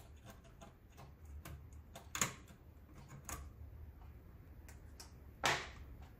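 Sparse small clicks and taps of hands and a small tool swapping a RAM chip on an Amstrad CPC 664's circuit board, with a louder click about two seconds in and another near the end.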